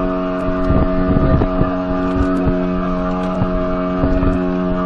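40 hp outboard motor running flat out at a steady pitch, pushing an inflatable boat through the sea, with the rush of water and wind over it.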